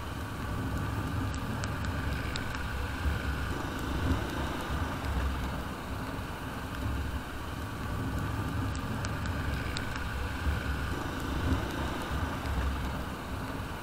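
Royal Enfield Bullet 350's single-cylinder engine running steadily as the motorcycle rides down a wet road, with a pulsing low rumble and steady road noise. A few faint ticks come in twice.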